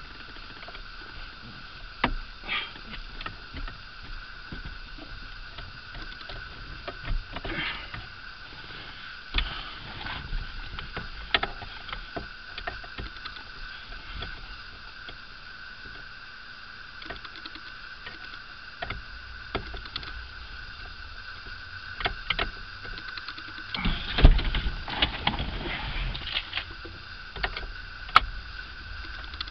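Scattered clicks, knocks and plastic rattles of hands prying and working the horn pad off a Toyota pickup's steering wheel, busiest with a heavier thump about three-quarters of the way through, over a steady faint high hum.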